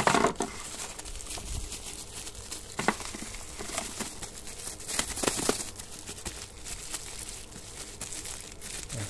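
Clear plastic bags and bubble wrap crinkling as they are handled, in a few short rustles; the loudest come right at the start and about five seconds in.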